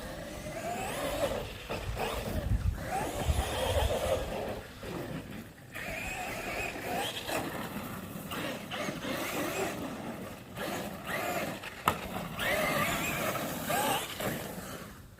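Traxxas Maxx electric RC monster truck's brushless motor whining, rising and falling in pitch again and again with the throttle. A sharp knock comes near the end.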